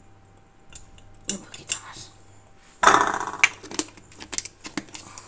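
Spice jar and metal spoon clicking and clinking against the plate and countertop, with a louder clatter about three seconds in as the jar is handled and set down.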